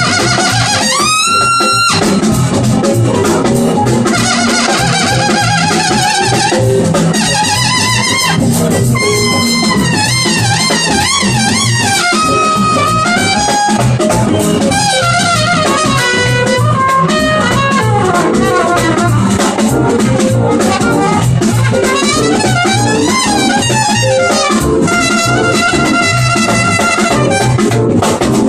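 Live jazz trumpet solo: the trumpet plays fast rising and falling runs with pitch bends, over a band of drum kit and electric bass.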